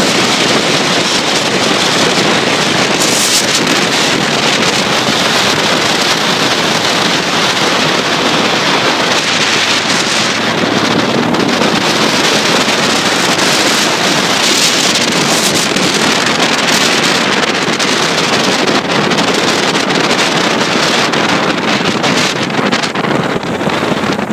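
Loud, steady rush of wind on the microphone of a camera riding on a moving motorcycle, with the bike's road noise mixed in.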